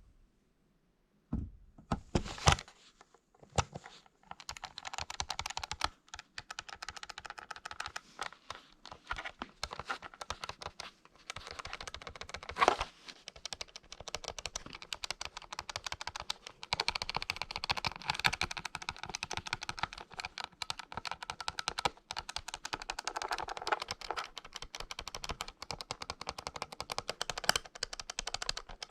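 Keys of a Commodore SR36 calculator being pressed: a few separate clicks, then a fast, dense run of key clicks with one louder click about halfway through.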